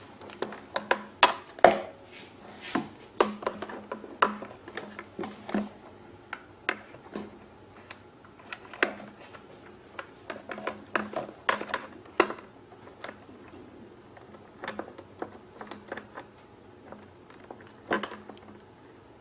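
Irregular metallic clicks and clinks of hand tools, pliers and locking forceps, knocking and snapping while a fuel hose and spring hose clamp are worked into place inside a generator frame. The clicks come thick at first and thin out after the middle.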